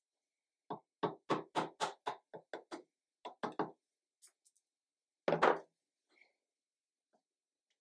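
Chisel work on a wooden tenon: a quick run of about a dozen sharp knocks, roughly four a second, then a louder double knock.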